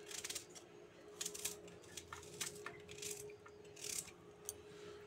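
Faint, irregular scratchy clicks and scrapes of a small kitchen knife and fingernails peeling the papery skins off garlic cloves, over a faint steady hum.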